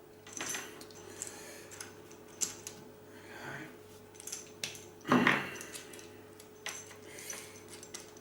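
Small metal clicks and scrapes as a soldered PL259 coax plug is handled and worked against its tight-fitting socket, with a louder scrape about five seconds in. A faint steady hum runs underneath.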